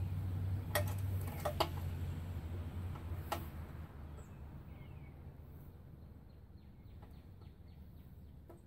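Sharp metal clicks from the pedal tractor's roller drive chain and sprocket as they are worked by hand: a few within the first three and a half seconds, then a run of faint, evenly spaced ticks that fade away near the end. A low rumble underneath dies out over the first few seconds.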